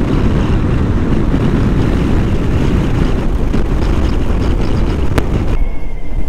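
Motorcycle riding at speed in a strong crosswind: heavy wind buffeting on the microphone over engine and road noise. About five and a half seconds in, the sound changes abruptly to a steadier running noise with a faint high whine.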